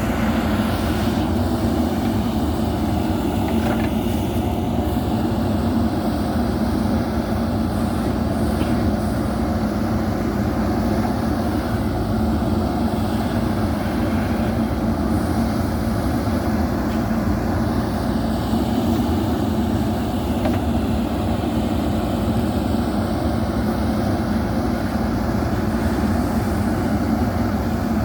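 JCB backhoe loader's diesel engine running steadily while the machine works.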